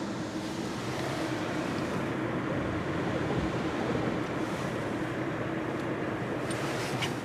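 Belanger Kondor automatic car wash spraying the car during its triple foam stage, heard from inside the car: a steady rush of spray over the body with a low pump hum, and a few light clicks near the end.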